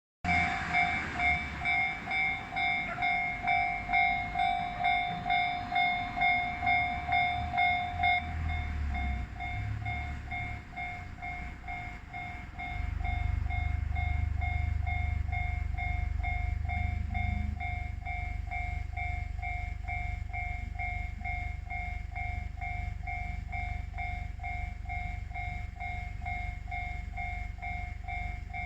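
Japanese level-crossing warning bell ringing its electronic two-tone 'kan-kan' about twice a second, loud at first and quieter after about 8 seconds. About 13 seconds in, the low steady rumble of a passing train comes in under the bell.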